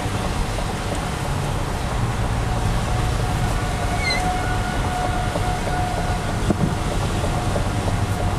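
Steady road and engine noise of a car driving, heard from inside the cabin, with a faint steady tone joining about three seconds in.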